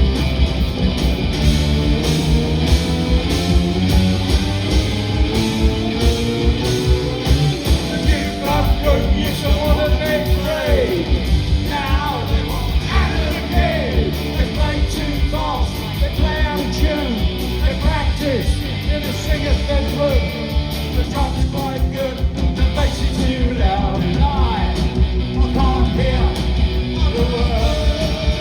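Punk rock band playing live: electric guitar, bass and drums, with a higher, bending melody line joining about eight seconds in.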